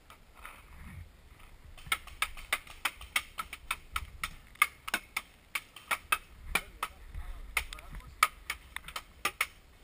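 Paintball fire: a rapid, irregular string of sharp cracks from paintball markers shooting and balls smacking the wooden bunker walls, starting about two seconds in.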